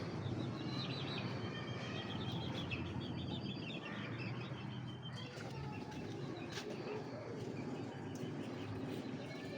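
Many small caged birds chirping together, busiest in the first half and thinning out later, over a steady low hum.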